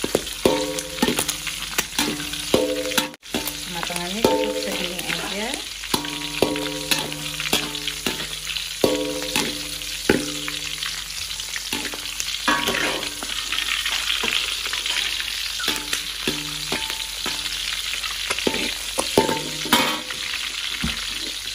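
Whole pre-braised squid sizzling in a little hot oil in an aluminium wok. A metal spatula scrapes and knocks against the wok as the squid are stirred without stopping, which keeps them from bursting and spattering. Brief squeaky, pitched tones come and go.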